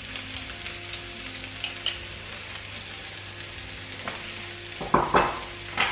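Chopped onion and garlic sizzling in oil in a hot wok, a steady frying hiss. A couple of sharp knocks stand out about five seconds in.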